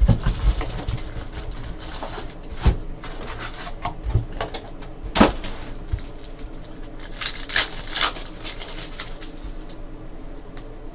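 Trading card packs from a 2014 Panini Contenders football hobby box being opened and handled: irregular crinkling of pack wrappers with scattered light knocks and taps.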